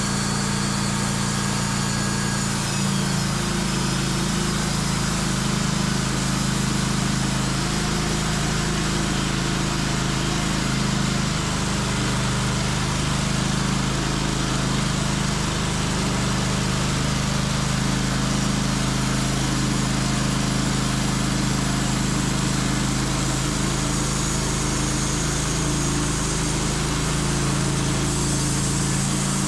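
Sawmill engine running at a steady, unchanging pitch.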